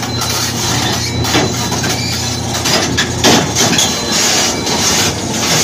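Hitachi Zaxis 520 crawler excavator's diesel engine running under load as the machine tracks up onto a steel low-bed trailer, with a steady low engine note and repeated clanks from the steel tracks on the deck.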